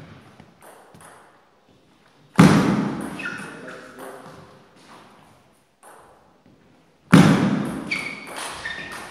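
Table tennis play: light taps of the celluloid ball, then two sudden loud thumps about two and a half and seven seconds in, each ringing on in the hall.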